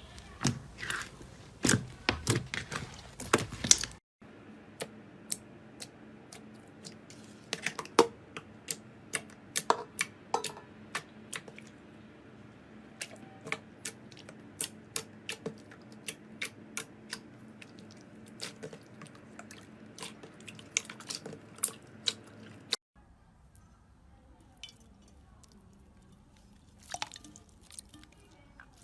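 Slime being squeezed and poked by hand, making many sharp sticky clicks and small pops. The sound changes abruptly twice, about 4 s and 23 s in, and the last stretch is quieter with only a few clicks.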